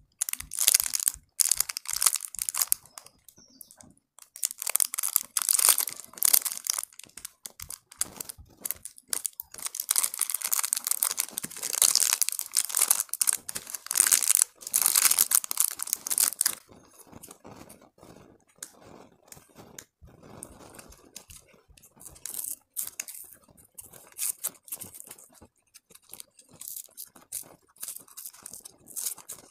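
Plastic candy wrappers crinkling and tearing as hands open lollipops, a dense crackle for the first two-thirds, then quieter, sparser crinkling as paper is peeled off a cone candy.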